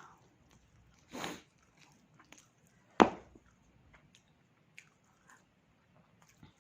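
A person chewing and biting pork close to the microphone: scattered small clicks of chewing, a brief noisy bite about a second in, and one sharp crack about three seconds in that is the loudest sound.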